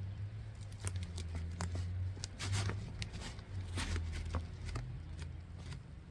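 Hands digging and scooping loose, damp potting soil out of a fabric grow bag, with irregular crumbling scrapes and rustles as it is moved, over a steady low hum.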